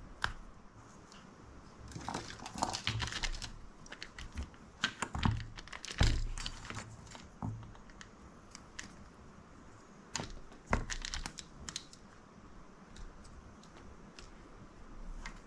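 Small hand tools handled at an electronics workbench: flush cutters snipping and trimming thin wires, with scattered clicks and short rustles in a few clusters.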